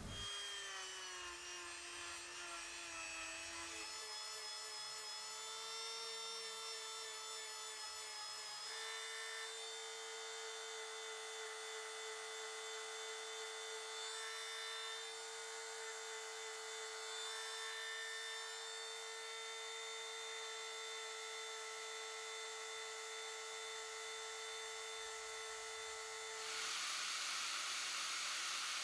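Small electric sanding disc running with a steady whine, its pitch stepping slightly a couple of times. Near the end, EVA foam cut from a slipper is pressed against the spinning abrasive disc, adding a louder grinding hiss.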